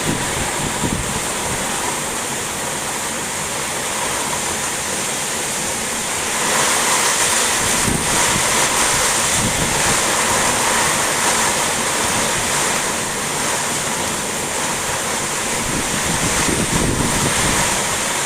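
Heavy rain pouring down in strong gusting wind, a steady rush of water with wind buffeting the microphone. It grows louder about six seconds in and again near the end.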